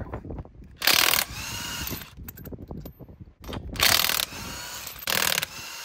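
DeWalt 20V cordless impact wrench loosening lug nuts on a steel wheel: three short bursts of rapid hammering, about a second in, near four seconds and just after five. Each burst is followed by a brief whirr as the nut spins off.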